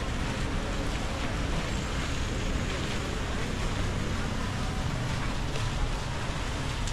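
Steady city street noise, mostly a low traffic rumble, with no distinct events standing out.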